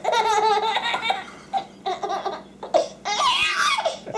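A baby laughing hard in several bursts of giggles, each a run of quick, high-pitched pulses, with short gaps between them.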